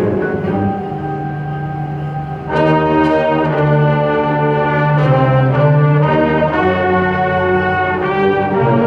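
A high school winter winds ensemble, led by its brass, playing held chords. The music drops back briefly, then comes in louder with the full ensemble about two and a half seconds in.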